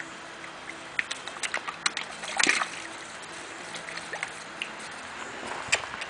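Koi and other pond fish feeding at the surface on a floating food ball: irregular sharp smacks and splashes as they snap at it, with one louder splash about two and a half seconds in.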